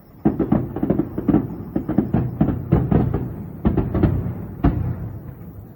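Fireworks shells bursting in a rapid barrage, about three booms a second, starting about a quarter second in and stopping a little before the end: a climax-style salvo.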